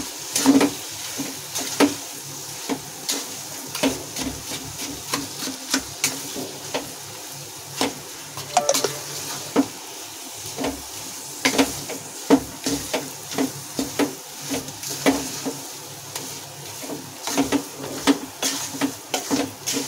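Wooden spatula scraping and knocking irregularly against an aluminium kadhai as khoya is stirred into hot ghee-roasted wheat flour, with a faint steady sizzle from the still-hot mixture underneath.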